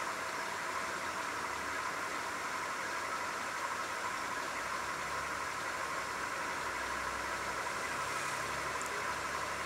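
Steady hissing background noise.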